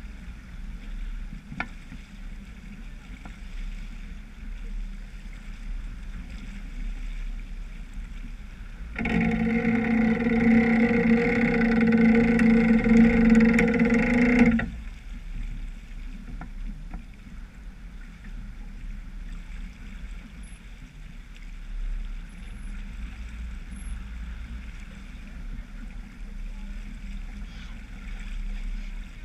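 Wind and water rushing past a sailboat's hull under sail. About nine seconds in, a loud steady droning tone starts abruptly and holds for about five and a half seconds, then cuts off suddenly.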